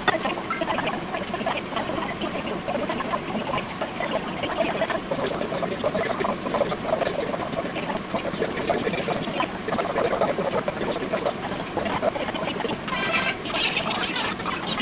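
Continuous splashing and gurgling of water, uneven but without a break.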